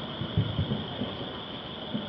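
Distant fireworks booming: a quick, uneven run of low, muffled thuds, the strongest about half a second in.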